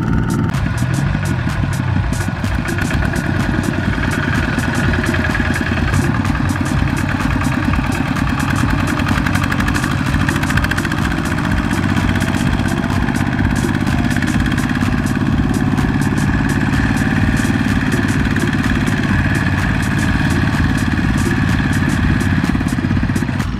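Single-cylinder diesel engine of a Kubota ZT120 two-wheel walking tractor running steadily with a rapid, even beat while it pulls a loaded trailer.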